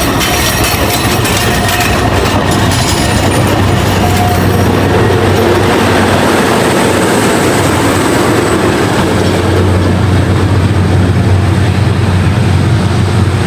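Alishan Forest Railway train running past and pulling away, a steady loud rumble with some clatter in the first seconds. A thin high whine sets in about halfway through.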